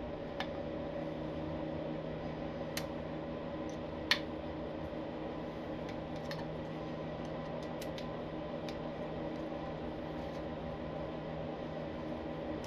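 Light, scattered metal clicks of a hex key threading a screw into a motorcycle's clutch cover, with one louder click about four seconds in, over a steady machine hum.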